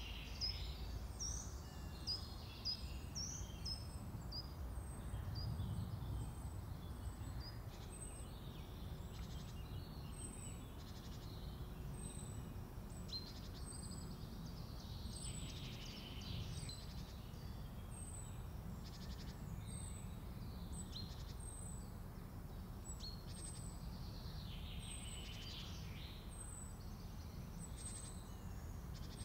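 Outdoor nature ambience: several small birds calling and singing, with one thin, high note repeated about once a second. A steady low rumble sits underneath.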